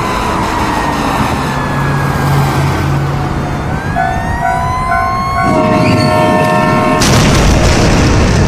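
Cartoon sound effects: a fire truck siren wailing, its pitch falling and then rising, with short repeated beeps about four seconds in. A train horn chord sounds about five and a half seconds in, and about a second later a loud crash noise bursts in as the train hits the truck.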